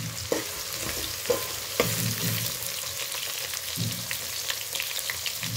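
Onions and soya chunks sizzling in hot oil in a metal pot, stirred with a metal spatula. The spatula knocks and scrapes against the pot a few times in the first two seconds.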